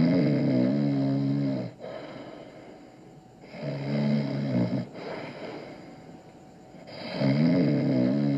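A man snoring in his sleep: a long, buzzing snore about every three and a half seconds, three in all.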